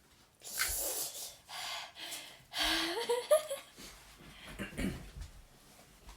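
A person breathing hard through the mouth after spicy chips: several loud, hissing breaths and a short rising voiced whine about three seconds in.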